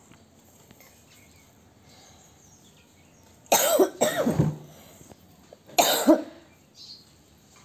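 A person coughing: a harsh double cough about three and a half seconds in, then a single cough near six seconds.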